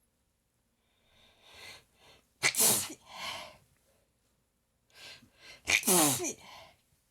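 A person sneezing twice, about three seconds apart, during a prolonged sneezing fit. Each sneeze comes after a build-up of catching in-breaths and is followed by a softer breath out.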